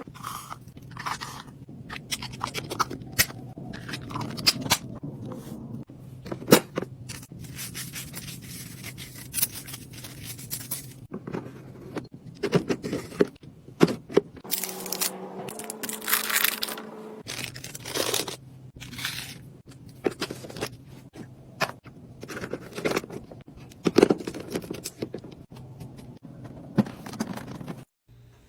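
Items and packaging being handled while a fridge is restocked: irregular crinkles, crunches, clicks and scrapes of plastic and wrappers over a steady low hum.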